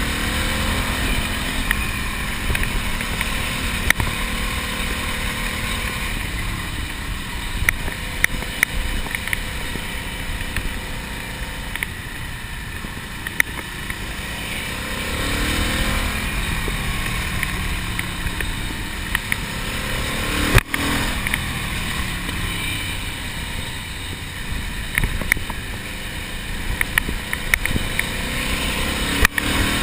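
Ducati Monster's air-cooled L-twin engine under way, mostly buried in wind rushing over the microphone, its note rising in pitch as the bike accelerates a few times. A sharp knock comes about two-thirds of the way through, with small ticks scattered throughout.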